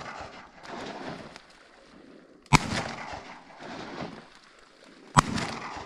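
Shotguns fired at incoming ducks: two loud blasts about two and a half seconds apart, each followed by a rolling echo that dies away over a second or so. It opens on the fading echo of a shot fired just before.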